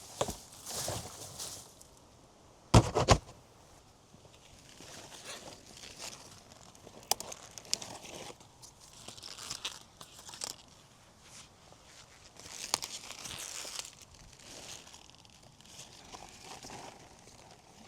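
Leaves being pulled and snapped off Brussels sprout plants: intermittent rustling, tearing and crackling, with scattered footsteps. A pair of sharp knocks about three seconds in is the loudest sound.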